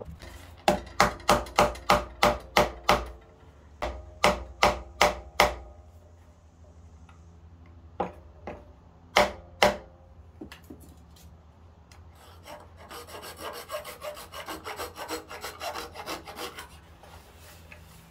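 Rubber mallet tapping bamboo pegs into the joints of a wooden bed frame: a quick run of about eight strikes, then four more, then a few spaced taps. About twelve seconds in come several seconds of rapid rasping strokes as a peg end is trimmed down.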